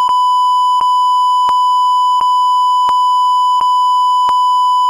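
A continuous, steady electronic beep tone, with a faint click about every 0.7 seconds. It is a censor bleep laid over the original sound of the scuffle.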